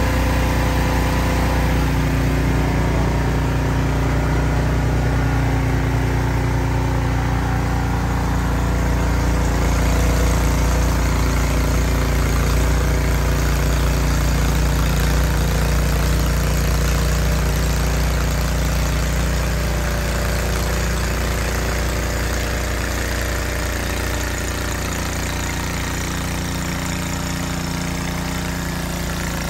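Ariens RapidTrack Platinum 28 SHO two-stage snowblower engine running steadily, with a rushing noise that grows louder about nine seconds in.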